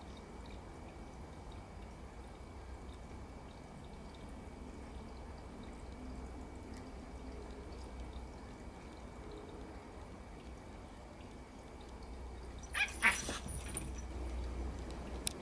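Wind rumbling steadily on the microphone, broken near the end by one short, sharp burst of sound.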